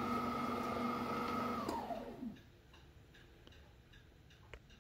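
Wolfgang Puck 600-watt stand mixer's motor running with a steady whine, then switched off a little under two seconds in, the whine falling in pitch as it spins down to a stop. A few faint clicks follow, with a light tap near the end.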